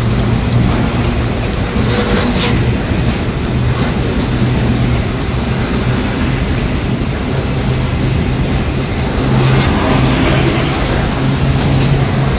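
Wagons of a yellow track engineering train rolling past at speed: steady wheel-on-rail rumble with a low hum, some clattering about two seconds in, and the noise growing louder near the end.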